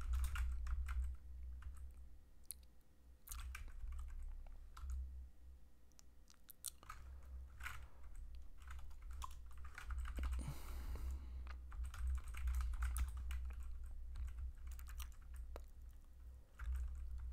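Typing on a computer keyboard: irregular bursts of keystrokes, with short pauses between runs.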